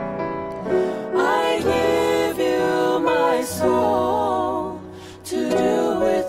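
Christian worship song: a sung vocal line with vibrato over soft accompaniment, easing briefly about five seconds in before picking up again.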